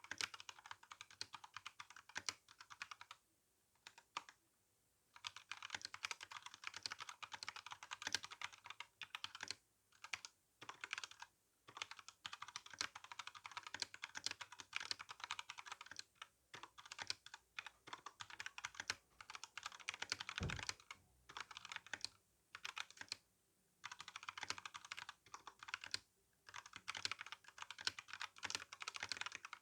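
Steady typing on an RK61 mechanical keyboard with tactile brown switches and GSA keycaps: fast runs of key clacks broken by a few brief pauses, with one low thud about two-thirds through.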